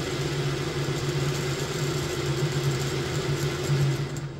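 Lionel O-scale GE U-33C locomotive's two motors and geared trucks running on a test stand: a steady electric whir and hum with a hiss of gear and roller noise, with something up front rubbing. The high hiss cuts off just before the end.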